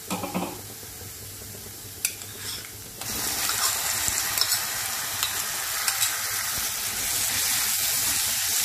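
Chopped onions sizzling in butter and oil in a wok, with a wooden spatula knocking and scraping as they are stirred. About three seconds in, chopped tomatoes go into the hot fat and the sizzle jumps suddenly much louder, then stays loud and steady.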